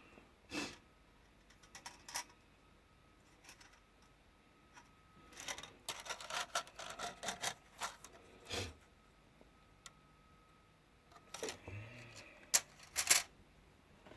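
Plastic miniature sprues being handled and set down: scattered light clicks and clatters, a busy run of them in the middle and a few sharper knocks near the end.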